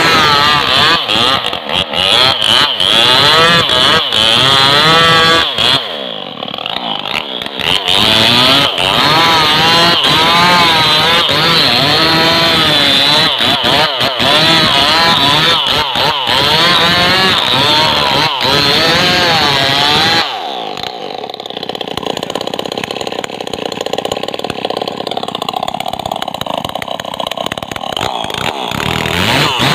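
Stihl MS 381 two-stroke chainsaw cutting into a standing tree trunk at high revs, its engine note wavering under the load of the cut. It dips briefly about six seconds in, and from about two-thirds of the way through it runs at a lower, quieter note.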